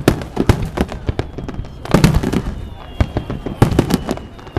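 Fireworks going off in a rapid, irregular string of bangs and crackling reports, with dense clusters about two seconds in and again near the end.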